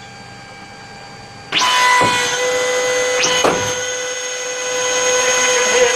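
Boeing 737-400 hydraulic system being switched on: about a second and a half in, a hydraulic pump starts suddenly and runs loud with a steady high whine, crossed by a few brief surges.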